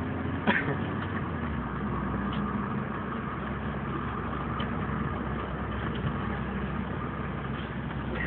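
Car engine and road noise heard from inside the cabin, running steadily at low speed, with a sharp click about half a second in.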